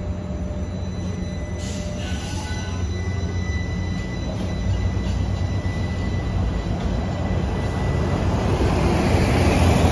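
DC Streetcar tram pulling away along a street, a steady low rumble with a thin high whine from its wheels or motors. Street noise swells and grows louder near the end.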